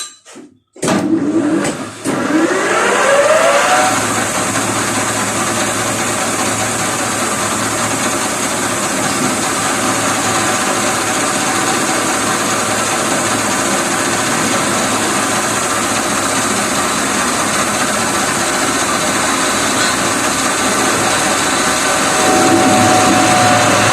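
A few metal clinks, then a metal lathe's electric drive starts about a second in, its whine rising in pitch over two or three seconds as it spins up, and then runs steadily with a loud, noisy hum.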